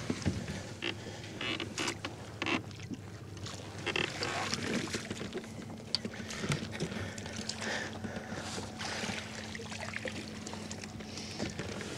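A hooked bass splashing and thrashing at the surface beside a kayak as it is fought in and scooped into a landing net, with irregular water splashes and knocks of rod, net and hull. A faint steady hum lies underneath.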